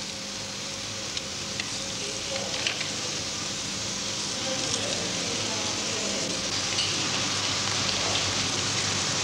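Steady hiss with a faint low hum and a few soft clicks, the background noise of a worn videotape copy; it grows slowly louder.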